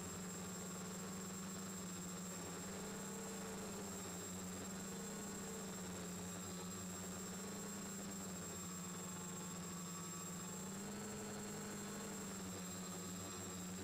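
Quadcopter's four Turnigy D2830 1000KV brushless motors and propellers humming steadily in a hover, heard up close from a camera on the frame. The hum's pitch wavers slightly up and down, with a faint steady high whine above it.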